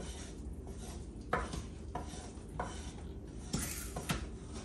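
A spoon stirring and scraping across the bottom of an enamelled cast-iron Dutch oven as a roux cooks. There are a few short scrapes about a second apart, the longest a little after three and a half seconds in, over a low steady hum.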